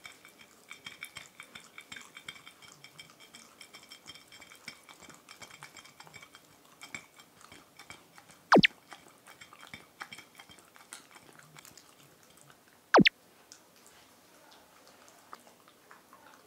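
Pembroke Welsh Corgi licking and chewing a soft baked treat off a ceramic plate: a run of small wet licks, clicks and taps against the plate, then chewing as the treat is carried off. Twice, a little past halfway and again about four seconds later, a short, loud, sharply falling tone cuts in, louder than anything else.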